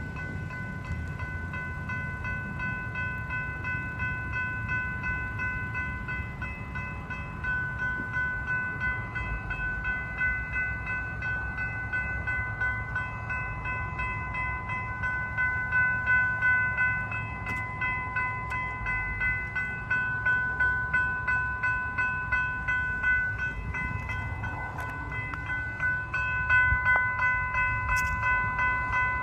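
Railroad crossing warning bell ringing on and on, a steady pitched ring that pulses about twice a second, with a low rumble beneath. The crossing is sounding with its gates down and no train present, a sign of a malfunctioning crossing signal.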